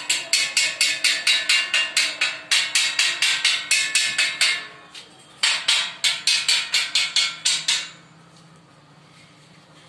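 Hammer striking steel with fast, even blows, about five a second, each blow ringing. One run of blows, a short pause, then a second run that stops about eight seconds in.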